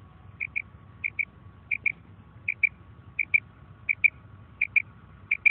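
Female common quail giving its "krik" call: short high double notes, repeated steadily about every 0.7 seconds.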